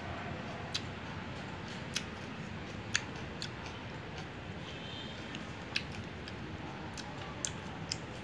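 Close-up eating sounds: a person chewing stir-fried chicken offal and greens, giving irregular sharp crunchy clicks about once a second over a steady low background hum.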